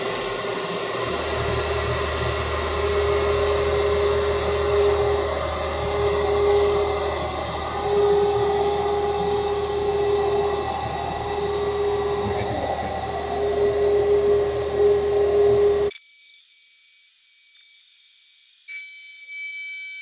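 Haas TM-1P CNC mill end-milling oxygen-free copper under flood coolant: a steady hiss of coolant spray over a low hum, with a mid-pitched cutting whine that breaks off and returns several times as the tool moves through the part. It cuts off suddenly about sixteen seconds in, leaving only a faint hum with thin high tones.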